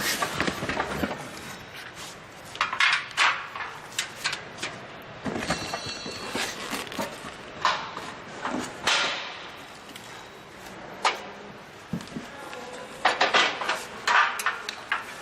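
Irregular knocks, clatter and rustling of solar water heater parts and cardboard packaging being handled, with a brief high ringing about six seconds in.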